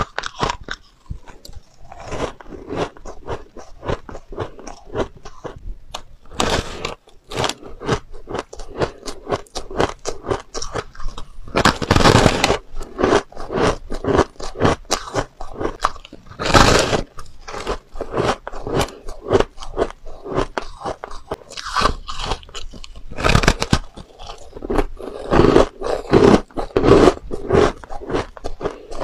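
Close-miked biting and chewing of soft, powdery purple-coloured shaved ice: a dense, crackly crunching that goes on without a break. Louder bursts of crunching come with fresh bites, about 12, 17 and 23 seconds in and several times late on.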